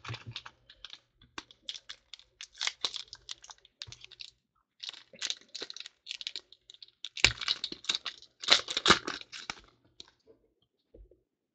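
Foil wrapper of a 2014 Panini Certified football card pack being torn open and crinkled in the hands: a run of short crackling rustles, loudest from about seven to nine and a half seconds in.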